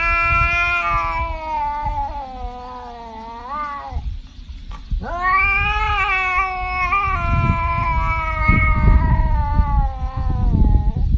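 Tabby cat yowling in two long, drawn-out calls: the first lasts about four seconds and sinks in pitch, and after a short pause the second rises and then falls over about six seconds.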